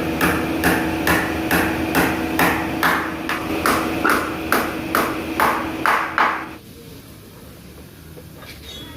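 Hammer blows in an even rhythm, about two and a half a second, that stop about six and a half seconds in; a few faint knocks follow.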